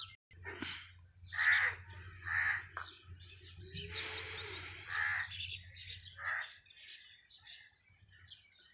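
Crows cawing: about five short, separate calls spread across the few seconds, with small birds chirping high about three to four seconds in.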